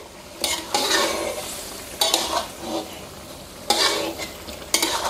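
Metal spatula scraping and clinking against an aluminium wok as chicken wings are stirred, about five strokes, over the steady sizzle of the sauce cooking down.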